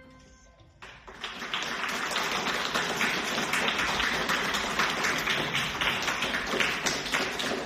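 The ringing of the last musical notes fades out, and after a short pause an audience breaks into steady applause, many hands clapping together.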